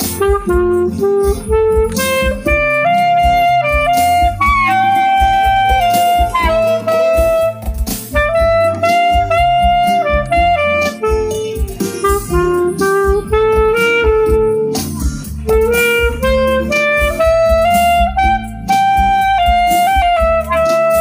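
Clarinet playing a slow pop melody in long held notes over a karaoke backing track with bass and a steady drum beat.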